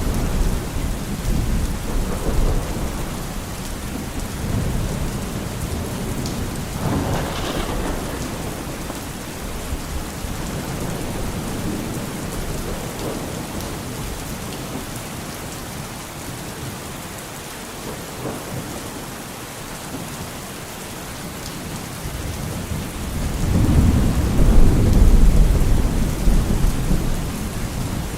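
Steady heavy rain with rolling thunder: low rumbles come and go, one about seven seconds in, and the loudest, longest rumble comes near the end.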